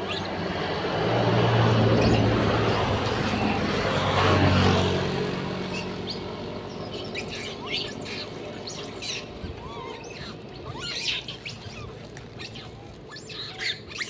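A motor vehicle passes on the road, loudest about two and four and a half seconds in and fading out by about six seconds. After that come many short, high, rising chirps and squeaks from young long-tailed macaques.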